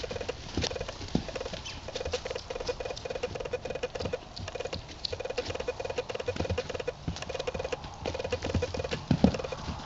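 A Paint Horse filly trotting: regular hoofbeats, with a rapid rattling pulse that comes in short, evenly repeating bursts.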